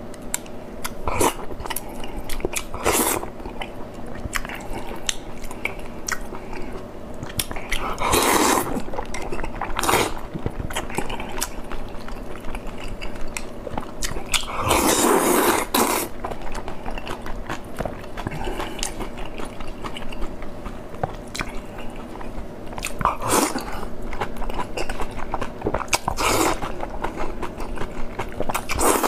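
Close-miked chewing and biting of blood sausage and boiled pork: many wet mouth clicks, with a few louder, longer bursts of eating noise, the biggest about eight and fifteen seconds in.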